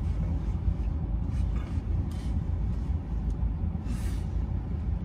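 Steady low rumble of a car idling, heard inside the cabin, with a few faint short rustles.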